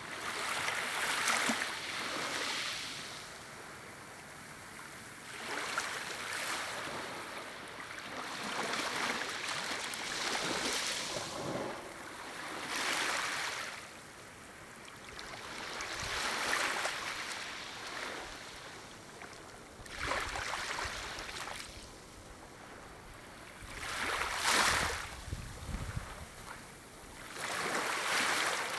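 Gentle waves lapping on a shore, washing in and drawing back about every three to four seconds, the water hissing and fizzing as each wave breaks.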